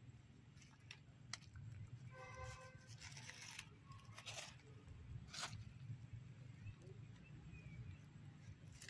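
Quiet outdoor ambience: a low steady rumble, with a few soft rustles and clicks, and a short steady-pitched call about two seconds in.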